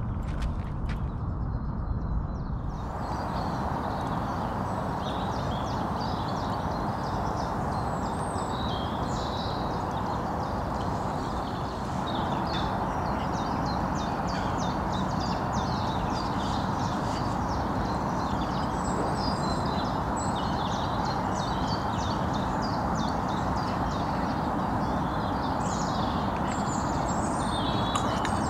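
Small birds chirping and singing throughout, over a steady low rushing noise that sets in about three seconds in.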